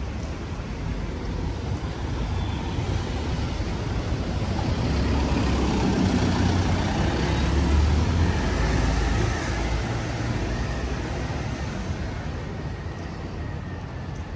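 Road traffic passing close by: a heavy vehicle's engine and tyre rumble swells to a peak around the middle and then fades away.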